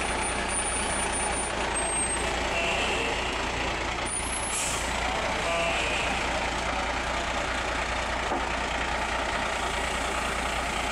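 Military heavy-haul tractor truck's diesel engine running as it slowly pulls a loaded lowboy trailer, with a short hiss of air about four and a half seconds in.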